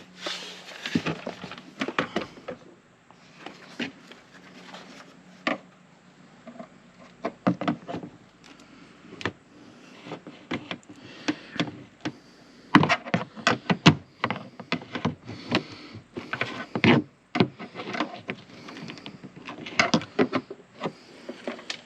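Plastic interior trim panel in a car being pried and worked loose by hand: irregular clicks, knocks and rattles in clusters, with a few sharper snaps.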